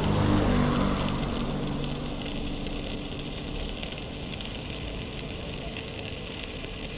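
Stick-welding arc crackling steadily as a Jasic ARC-202 mini inverter welder burns a 3.2 mm electrode into steel, the rod biting in and holding a stable arc.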